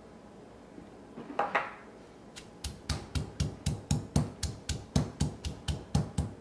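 Stone pestle pounding shallots, garlic and cumin seeds in a heavy stone mortar: after a brief knock about a second and a half in, a steady run of dull strikes starts a little before halfway, about four a second.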